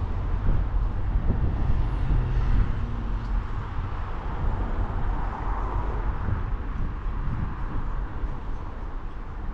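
Road noise from an open-top Smart fortwo cabrio driving in city traffic: tyre and engine noise with a low wind rumble on the microphone, swelling briefly about five to six seconds in.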